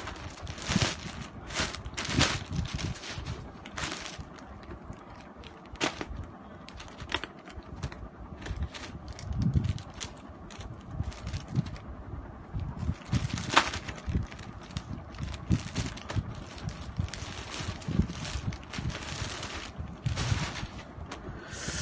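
Plastic mailer bag crinkling and rustling as it is handled and pulled open, with many irregular sharp crackles.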